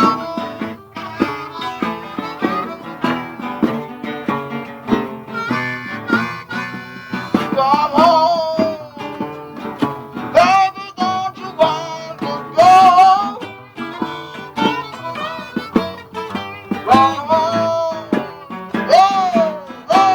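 Blues band playing live: guitar with a harmonica wailing over it in bent, sliding notes, the harmonica loudest in several phrases from about a third of the way in.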